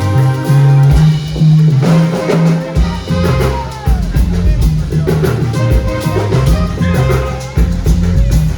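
A band playing music, led by a drum kit beat over a bass line.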